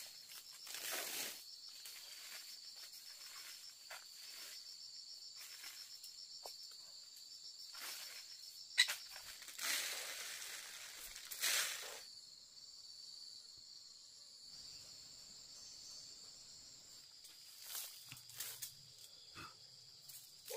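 Insects chirping in a high, pulsing trill, with short bursts of rustling now and then and a sharp click about nine seconds in.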